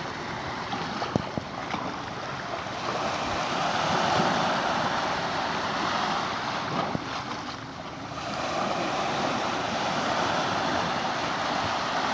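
Sea waves breaking and washing up the beach, swelling twice in long surges.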